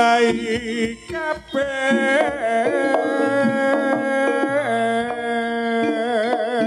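Live Javanese jaranan music: a held, wavering melody line over steady lower tones and drum strokes.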